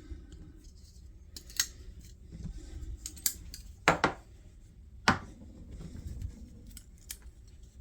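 Folding pocket knives being handled on a table: about four sharp, separate clicks with soft handling noise between.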